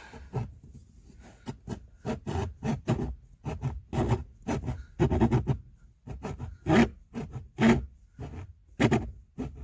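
A hand blade sawing and rasping through hard plastic housing in uneven back-and-forth strokes, about two or three a second, with a short pause partway through; the strokes throw off plastic filings.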